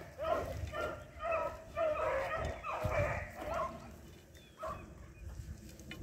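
Hounds baying and yelping in chase, a pack that has game on the move. The calls thin out a little past the middle and pick up again near the end.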